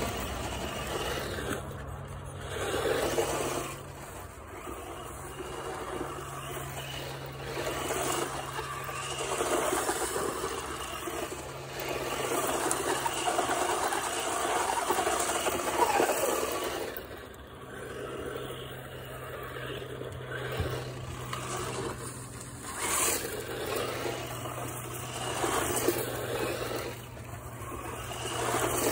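Battery-powered BOIFUN four-wheel-drive RC truck driving over dirt, its motor and tyres growing louder and fainter in waves every few seconds as it speeds up, slows and passes.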